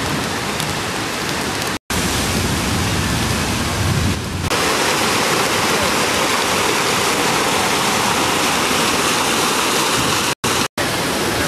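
Brown floodwater of a creek swollen by heavy rain, rushing and churning over rocks: a steady, loud rush of water that breaks off for a moment near two seconds in and again near the end.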